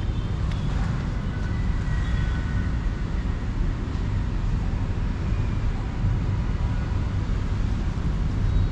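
Steady low rumble of outdoor background noise with no distinct events, and a faint high tone about two seconds in.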